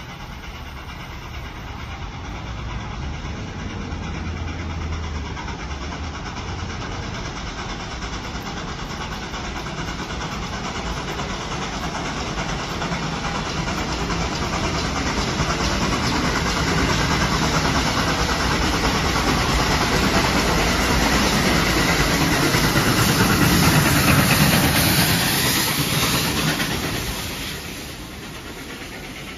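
Steam-hauled heritage passenger train approaching and running through the station, the noise of the steam locomotive and wheels on rail building steadily and peaking a few seconds before the end, then dropping off quickly as the locomotive passes and moves away.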